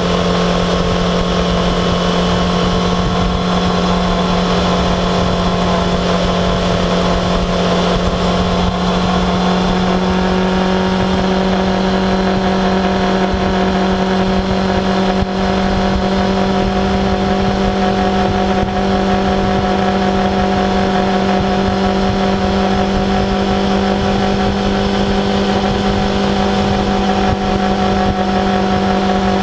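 Yamaha XJ6F 600cc inline-four motorcycle engine running at a steady cruise, with wind rushing over the camera. The engine note shifts slightly about ten seconds in.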